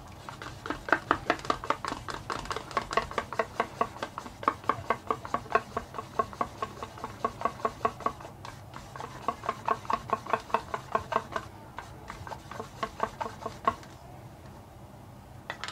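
Paint being stirred in an airbrush's colour cup with a thin stick, the stick ticking against the cup in a fast even rhythm of about four strokes a second, with one short pause and stopping a couple of seconds before the end.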